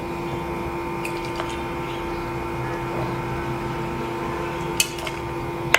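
A steady machine hum with several fixed pitches, with a few sharp clinks of a spoon or ladle against a vessel as the kadappa is served out, the loudest two near the end.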